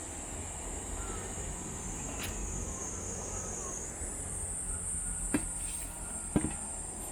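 Steady outdoor ambience: a constant high-pitched hum, rising slightly in pitch about halfway through, over a low rumble, with two short sharp knocks about a second apart near the end.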